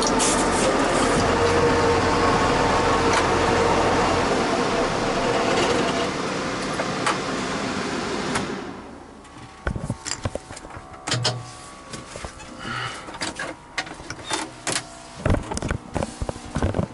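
Tractor engine running steadily, then dropping away about eight and a half seconds in; after that only scattered knocks and clicks are heard.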